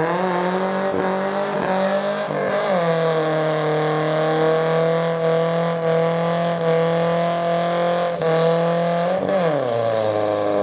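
Car engine revved hard and held at high, steady revs while the drive wheels spin in a smoky burnout, with a hissing tyre squeal over it. The revs drop and climb again about nine seconds in.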